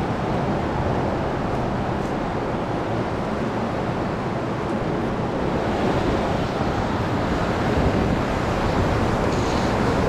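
River current rushing over a shallow riffle close to the microphone: a steady, even rush of water that grows a little louder from about six seconds in.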